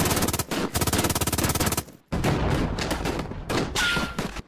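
Battle sound effect of rapid automatic gunfire: machine-gun fire in two long bursts, with a brief break about two seconds in and a short falling whine near the end.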